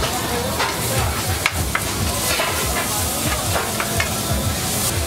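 Food sizzling as it fries on a hot cooking surface, with a metal utensil clicking and scraping against it a few times.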